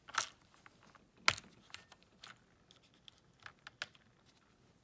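Plastic seven-day pill organizer being handled, its snap-shut compartment lids clicking: a string of sharp plastic clicks, the loudest about a second in.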